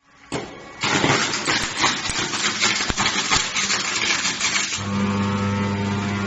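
Flash butt welding machine (UNT-175KVA) flashing: a loud, dense sputtering crackle as the arcing joint throws out a shower of sparks. A little before the end the crackle drops away and a steady electrical hum remains.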